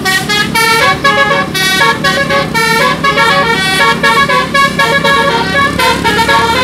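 Bus's telolet musical air horn playing a tune of short notes, stepping in pitch several times a second, over a steady low hum.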